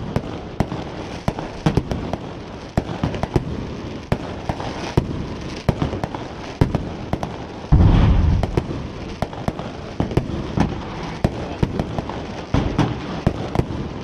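Fireworks going off in quick succession: many sharp cracks and pops, with one heavy boom about eight seconds in, the loudest of the lot.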